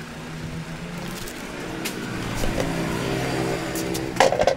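Hero HF Deluxe motorcycle's single-cylinder engine running, picking up speed and getting louder from about halfway. A brief loud burst of sound comes near the end.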